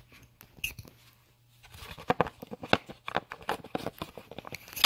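Hard plastic trim panel being handled and fitted into place: a quick run of clicks, knocks and scrapes, busiest in the second half.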